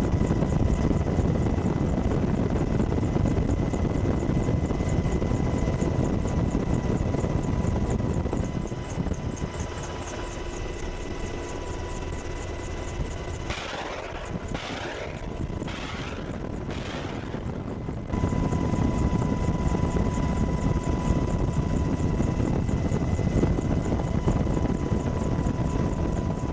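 Military helicopter in flight: a steady heavy rotor and turbine rumble with a thin steady whine above it. It drops off for several seconds in the middle, with a few short bursts of noise, then returns at full strength.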